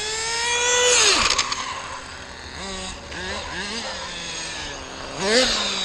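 Kyosho FW-05 nitro RC car's small glow engine revving, its whine climbing steeply to a peak about a second in and then cutting off sharply, followed by several short throttle blips that rise and fall, and another rev near the end. The engine is tuned rich.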